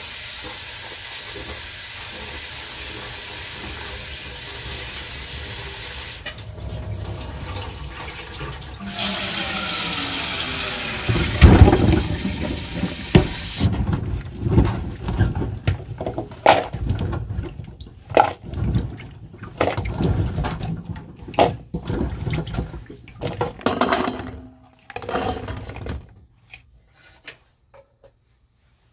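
Kitchen tap running into a stainless steel pot in a steel sink, then hands sloshing and rubbing chillies and tomatoes in the water, with irregular splashes and knocks against the pot. The splashing stops a few seconds before the end.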